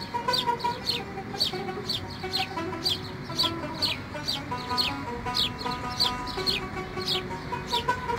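Birds chirping: short, high calls that fall in pitch, repeated about twice a second, over soft music with steady held notes.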